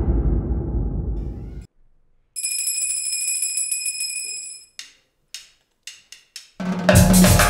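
A whooshing logo sound effect fades out, then a high ringing tone holds for about two seconds. A few sharp clicks follow, and near the end a lakas band of panpipes with drums and cymbals strikes up.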